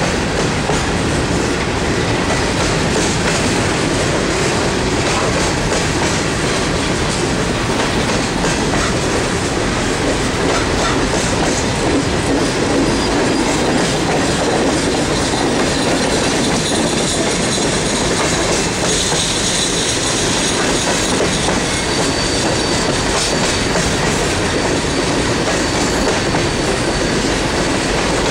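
Empty CSX coal cars rolling past, their steel wheels clattering steadily over the rail joints, with a faint high wheel squeal for a few seconds past the middle.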